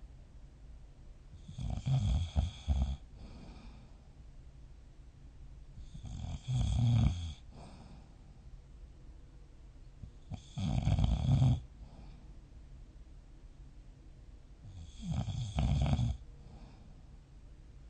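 A person snoring in sleep: four loud snores at an even pace, about every four and a half seconds, each lasting a little over a second, with quiet breathing between.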